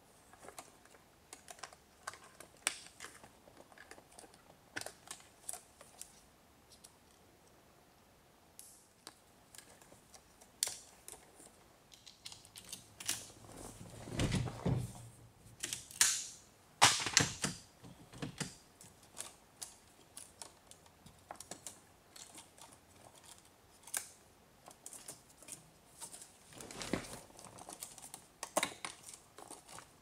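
Scattered small plastic clicks and ticks of hands unplugging electrical connectors and moving wiring in a steering wheel hub, with a louder run of knocks and clatters around the middle.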